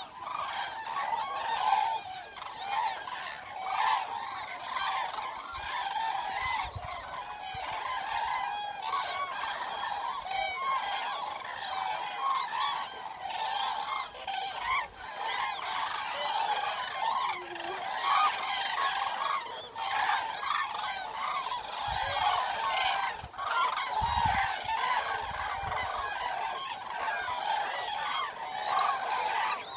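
A flock of Eurasian cranes calling continuously, with many loud, honking calls overlapping one another.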